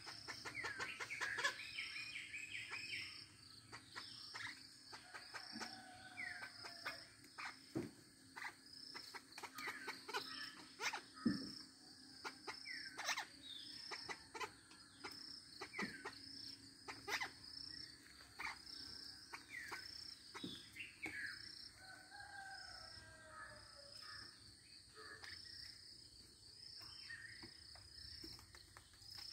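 Junglefowl clucking faintly and giving short falling chirps every few seconds, over a high note repeating about once a second, with a few sharp knocks, the loudest about 11 seconds in.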